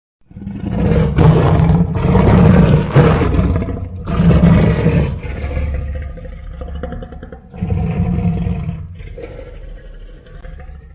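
Creature roar sound effect for an imaginary tapir–elephant beast. A long, loud, rough roar starts a moment in and is followed by a second shorter roar about four seconds in. After that come quieter rumbling roars, with another swell about eight seconds in.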